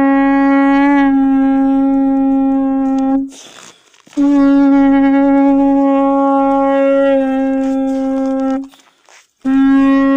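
Tibetan conch-shell trumpet (dungkar) blown in long, steady blasts on one low note, with short breaks between them. One blast cuts off about a third of the way in, the next holds for over four seconds, and a third begins near the end. It is sounded as the call to prayer.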